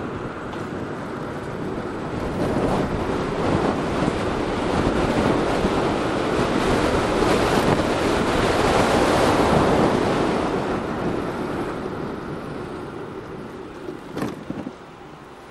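Wind rushing and buffeting on the microphone of a camera mounted on a moving electric moped at about 35 km/h, a steady roar that swells to its loudest about two-thirds of the way through, then eases off. A couple of sharp knocks come near the end.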